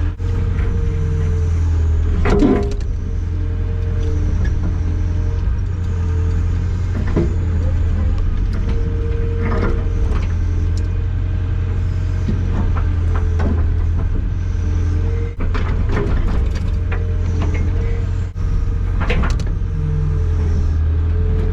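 Caterpillar 205LC excavator's diesel engine running steadily under work, heard from inside the cab, with a higher tone that comes and goes as it works and a few sharp knocks.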